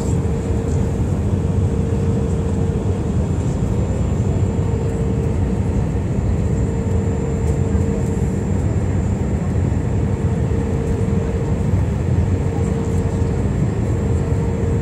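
Airbus A319 cabin noise in flight on approach: a steady low rumble of engines and airflow, with a mid-pitched hum that fades in and out and a faint, steady high whine.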